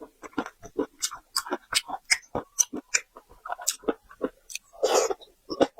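Close-miked chewing and biting, a run of quick wet crunches and smacks, of raw marinated tiger prawns in a sauce with crunchy peanuts. One longer, noisier burst comes about five seconds in.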